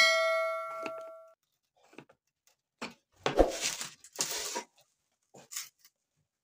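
Screwdriver prying up the crimped metal clips on a radiator's header to free the plastic tank: a sharp metal strike that rings for about a second, then two short rough scrapes and a light click.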